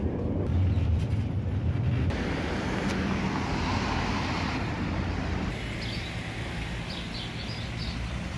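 City street traffic: car engines and tyres passing on the road, a steady low rumble that changes abruptly twice as the shots change. A few short high chirps come near the end.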